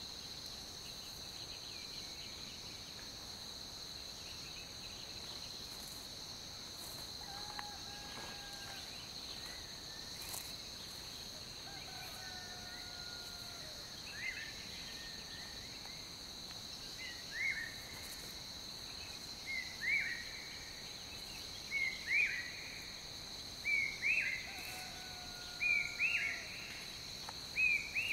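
Steady high-pitched insect chorus in woodland. From about halfway on, a bird calls in short rising notes, singly and in pairs about every two seconds, growing louder toward the end, with a few lower flat whistled notes in between.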